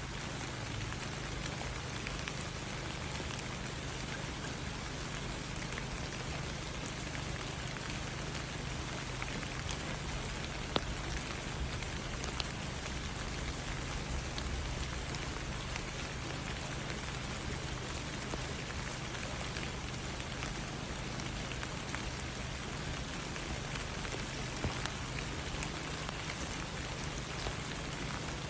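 Steady rain falling, a constant hiss with scattered drop ticks, one sharper drop hit about 11 seconds in.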